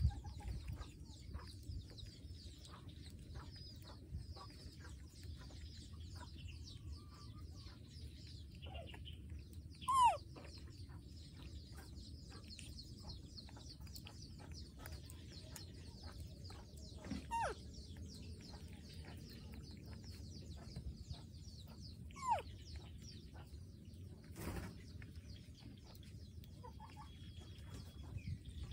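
Three short animal calls spaced several seconds apart, each falling steeply in pitch, the first the loudest, over a faint steady background with light ticking; one sharp knock near the end.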